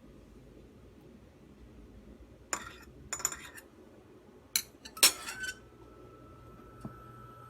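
Kitchenware clattering: dishes and utensils clink against each other in four short bursts, the last the loudest. A faint steady high hum starts just after the last clatter.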